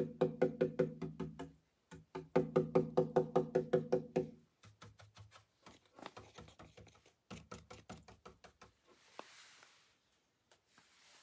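Round paint brush pouncing rapidly against the wooden panel of a hope chest: quick hollow knocks, about five a second, in two runs that stop and start. The knocks then grow softer, and a faint brushing hiss comes near the end.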